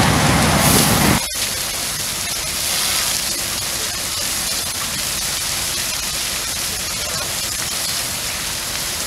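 Fire truck engine running loudly for about the first second, then an abrupt change to a steady hiss of a hose stream spraying water onto a burning house.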